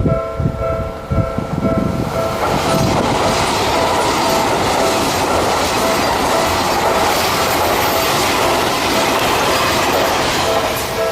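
Two Japanese railway level-crossing alarms, an Odakyu one and a Seibu one, ringing at the same time in clashing pitches, with rhythmic wheel thumps at first. About two seconds in, a passing train's loud rushing noise covers the bells until near the end, when their pulsing tones come back through.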